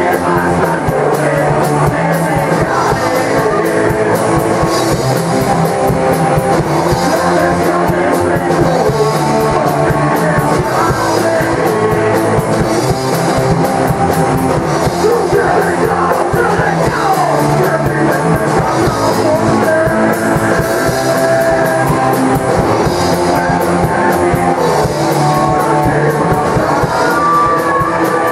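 Loud live metal band playing: distorted electric guitars and bass over fast, driving drums, with shouted vocals.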